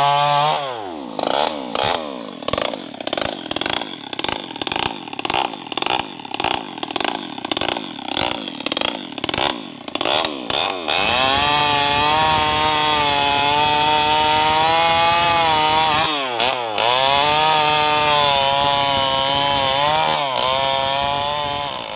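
New West 588 two-stroke chainsaw run without a muffler. For about the first eleven seconds it runs at low speed with an uneven, pulsing beat. It is then opened up to steady full throttle, with one brief dip about two-thirds of the way through, and falls off at the very end.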